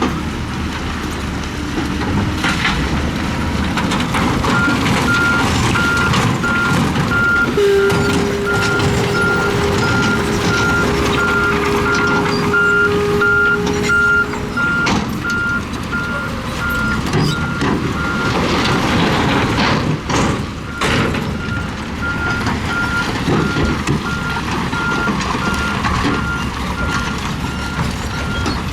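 A construction vehicle's reversing alarm beeping at a steady rate, with the diesel engine of heavy earthmoving machinery running underneath. The beeping starts a few seconds in and pauses briefly past the middle. A steady lower tone sounds for about seven seconds.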